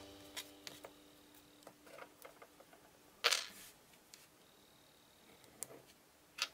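Quiet handling sounds of Play-Doh crafting on a tabletop: a few light clicks and taps, with one louder brief scrape about three seconds in as a plastic modelling tool is picked up and set to the dough, and two sharp clicks near the end.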